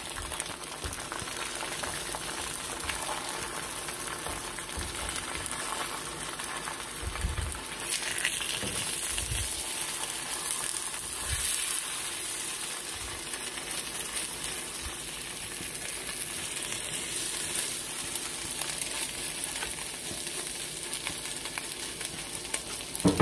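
An egg frying over hard in a nonstick aluminium skillet, its yolk broken and the egg just flipped: a steady sizzle, with a few low bumps as a silicone spatula presses and moves the egg in the pan.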